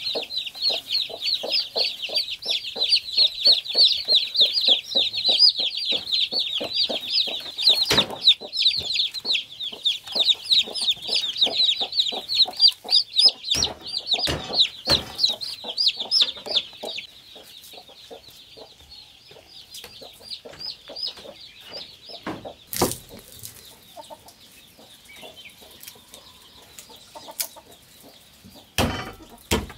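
A brood of chicks peeping rapidly and shrilly while a hen clucks in a steady, low rhythm. The peeping grows much fainter about halfway through. Near the end come a couple of sharp knocks of a cleaver on a wooden chopping block.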